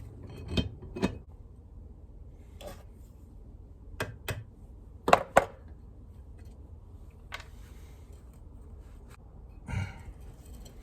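Scattered sharp metal clinks and knocks from bench-vise parts being handled and pushed together while trying to compress and fit a stiff spring. The loudest are two close together about five seconds in.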